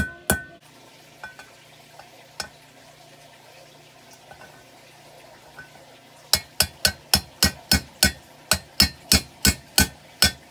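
Claw hammer tapping the shift rod seal bushing into the lower unit housing of a 1959 10 hp Evinrude outboard. Two strikes come at the start and one a couple of seconds later, then a steady run of about three strikes a second from a little past halfway.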